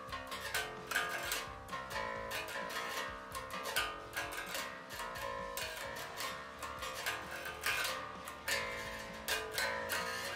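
Squier Affinity Precision Bass played unplugged, its strings heard without an amplifier: fingers pluck a quick, continuous run of fretted notes.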